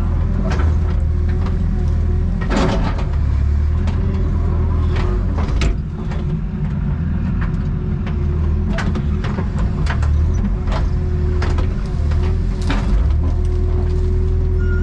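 Excavator's diesel engine running steadily with a steady whine, broken by repeated sharp cracks and knocks from the machine at work.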